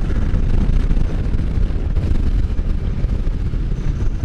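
Can-Am Spyder riding along at speed: steady engine and road noise mixed with wind rushing over the microphone.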